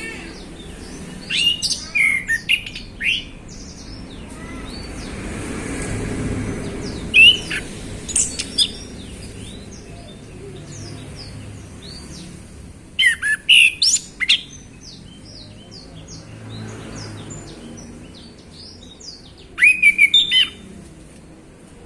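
Male orange-headed thrush singing: short bursts of loud, rapid, high whistled phrases about every five or six seconds, with fainter chirps in between.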